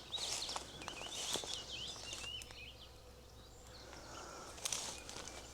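Small birds twittering in quick, rapid chirps for the first couple of seconds, then thinning out, with a few light clicks.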